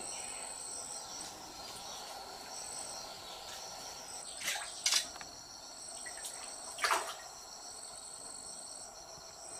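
Insects chirring steadily in several high-pitched tones. A few short swishes and a sharp click come around the middle, as a bamboo fishing pole is cast over the water.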